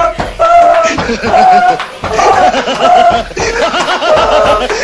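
Loud laughter from men, in short repeated bursts, mixed with shouting.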